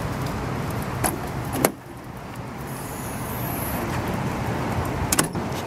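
A steel shop door pulled shut, with a knock and then a sharp clack about a second and a half in. Near the end come a few quick clicks as the door's lever lock is worked with a key. A steady hiss runs underneath.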